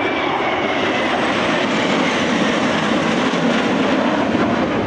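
Four F-16 fighter jets passing overhead in close formation: a loud, steady jet roar, with a faint whine sliding down in pitch in the first second.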